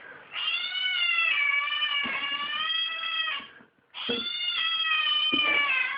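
A cat yowling in two long, drawn-out, high-pitched wails: the first lasts about three seconds, the second starts about four seconds in.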